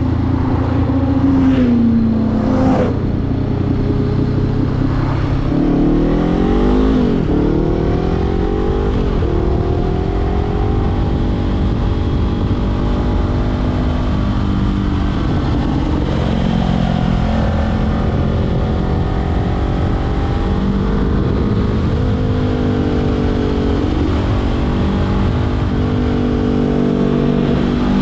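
Honda CBR500R's parallel-twin engine through a LeoVince LV-10 exhaust under way: the revs fall in the first couple of seconds, climb in quick steps with gear changes about six to nine seconds in, then hold a steady cruise with small rises and dips.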